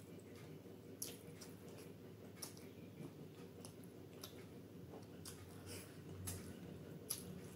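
Faint, close-up eating sounds: a few short sticky clicks and squelches as fingers tear butter naan in thick paneer gravy, then mouth and chewing noises as the bite is eaten near the end, over a steady low hum.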